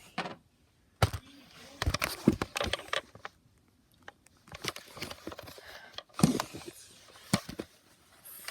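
Irregular clicks, knocks and rustling of close handling noise, with a few sharper knocks about a second in, around two to three seconds in, and near six and seven seconds in.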